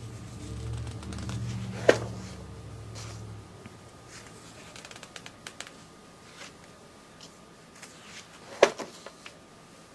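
Paper pages of a binder catalog being handled and turned: light rustling and small ticks, with two loud sharp snaps about seven seconds apart. A low steady hum runs underneath and stops about three and a half seconds in.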